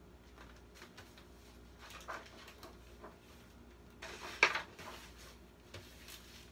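A hardcover picture book being opened and handled, with soft rustles and light clicks as the cover and pages are turned. There is a louder rustle about two seconds in and a sharper knock with a rustle of pages a little after four seconds.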